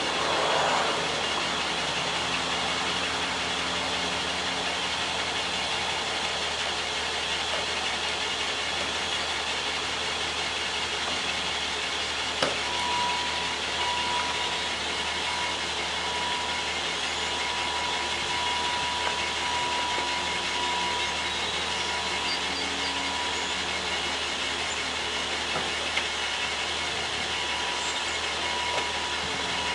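1993 BMW E30 convertible's engine idling steadily. A sharp click comes about twelve seconds in, and a thin high tone, broken by brief gaps, sounds from then on.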